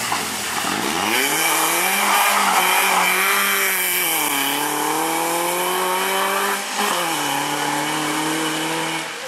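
BMW E36 rally car's engine pulling hard on a stage: the pitch climbs over the first second or so, dips and climbs again about four seconds in, drops about seven seconds in, then holds steady and fades slightly near the end.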